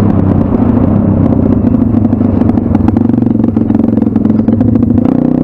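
2019 M2R RF140 pit bike's single-cylinder four-stroke engine running at a fairly steady speed while riding, with a constant fast rattle over it.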